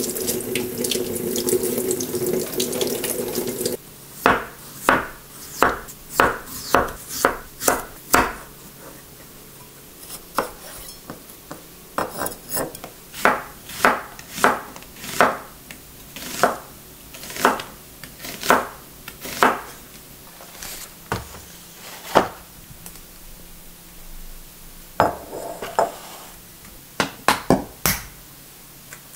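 Kitchen tap water running over a peeled onion in the sink, stopping suddenly about four seconds in. Then a knife slicing through the onion onto a wooden cutting board in steady strokes, about two a second, for some fifteen seconds. Near the end, a few sharp knocks.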